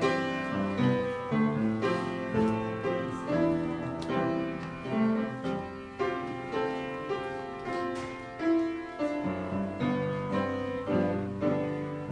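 Piano music: a slow run of chords and melody notes, each struck and then fading.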